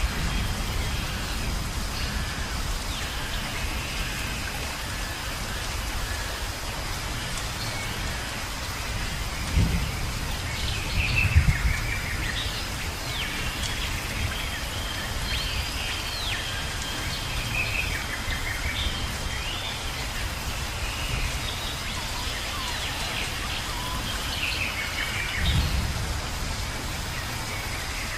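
Rainforest ambience: steady rain with low rumbles of thunder, one about ten seconds in, a stronger one just after, and one near the end, and birds whistling and calling over it.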